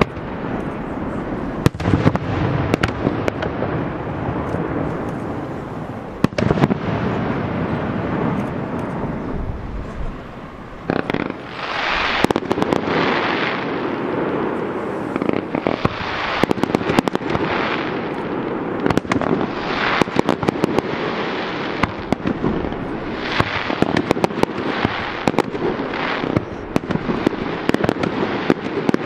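Fireworks display: aerial shells bursting in a steady stream of sharp bangs and crackles. After a short lull about ten seconds in, a rapid run of louder bursts follows, about one a second.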